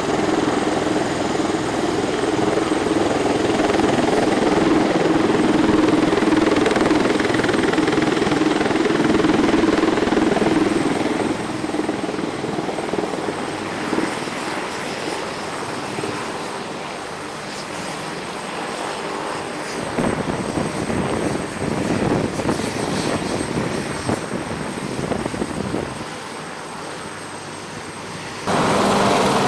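Military helicopter running, a steady mix of turbine and rotor noise. The sound changes abruptly several times, loudest in the first ten seconds, quieter in the middle, and jumping back up just before the end.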